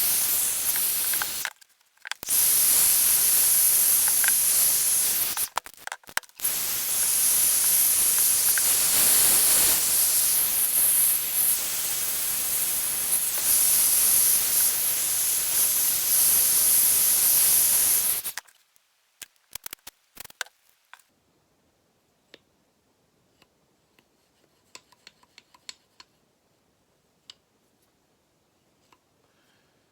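Aerosol spray paint hissing from the can in three long bursts, the last running to about 18 seconds in, as the restored pliers are painted against rust. A few light clicks and ticks follow.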